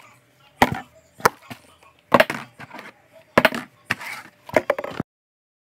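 Knocks and clatters of things being handled and set down on a kitchen worktop close to the microphone, about six sharp bumps in five seconds. The sound cuts off suddenly near the end.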